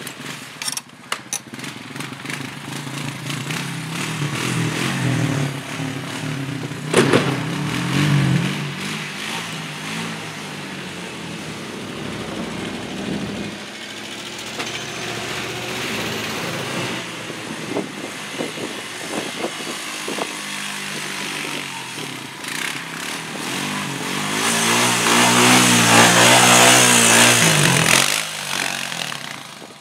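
ATV engine running as the quad pushes snow with its front plow blade. The engine pitch rises and falls as the rider works the throttle, and the sound is loudest near the end as the ATV passes close by.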